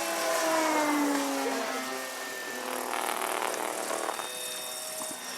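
Engine of a 60-size Seagull Models Extra 300s radio-control aerobatic plane buzzing in flight, its pitch falling over the first couple of seconds and then holding fairly steady.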